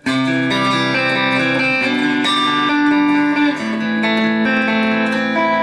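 Tokai Gold Star Sound Strat electric guitar playing chords with a humbucker split to single coil by its push-push mid tone pot. A chord is struck at the start and left ringing, and a new chord comes about three and a half seconds in.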